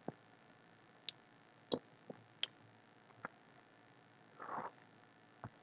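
Faint, scattered small clicks and ticks, about seven of them at irregular intervals, with one short soft rustle about four and a half seconds in.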